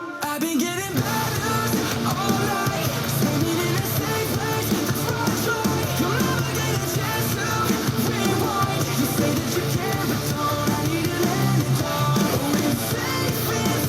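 Metalcore music with guitar and drums played back through a small Bluetooth speaker and picked up by a cheap microphone. The music dips briefly at the very start, then runs steadily.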